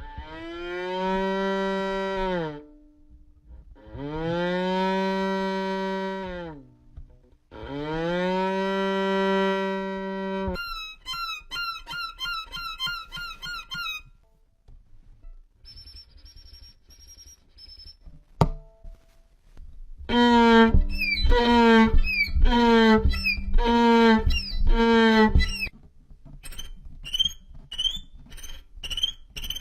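Violin played for sound effects rather than a tune. Three long notes each swell and bend in pitch. They are followed by quick, high squeaky chirps, a faint high tone, a single sharp click, a run of short sliding notes about twice a second, and more high chirps near the end.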